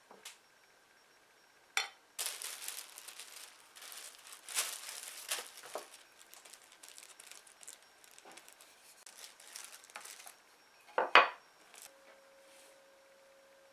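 Clear plastic film crinkling and rustling as it is handled over cookie dough, with a few light knocks. A sharp knock about eleven seconds in is the loudest sound.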